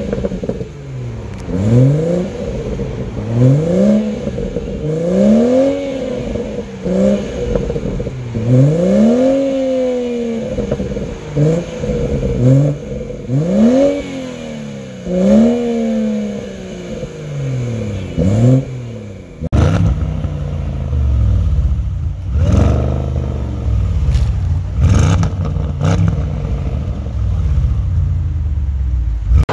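BMW M240i's turbocharged straight-six being revved at a standstill, a dozen or so quick blips each rising and falling in pitch. After a cut about two-thirds of the way through, a deeper Audi saloon engine is revved, with a few sharp cracks from the exhaust.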